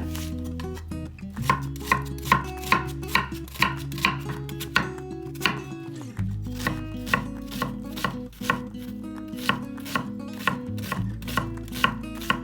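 Knife chopping on a cutting board in a steady rhythm of about two to three strokes a second, over background music.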